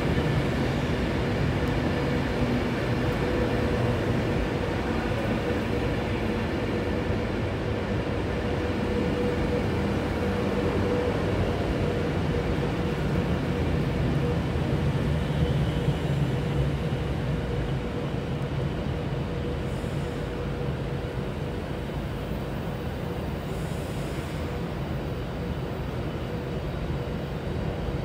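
A train running steadily: a continuous hum with a held tone over it.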